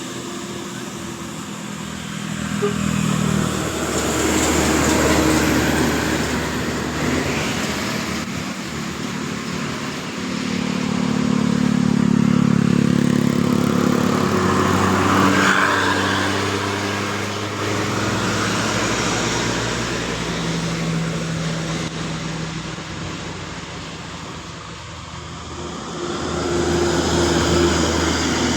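Large buses driving past one after another, engines running and revving, with swells in loudness about 4 s in, from about 11 to 16 s, and near the end.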